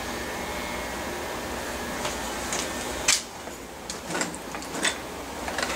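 Corded electric hair clippers buzzing, then switched off with a sharp click about three seconds in. A few light clicks and rustles of handling follow.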